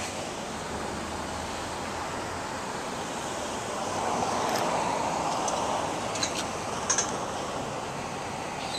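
Steady street traffic noise that swells as a vehicle passes, about four to six and a half seconds in. A few sharp clicks come around six to seven seconds in.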